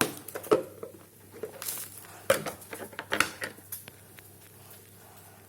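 Kitchen utensils and containers clicking and knocking, a string of light, sharp knocks in the first four seconds, then quieter.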